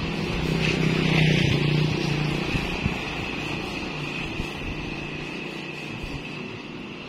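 Road traffic going by: a passing vehicle's engine grows to its loudest about a second in and then fades away steadily, over a steady high hiss.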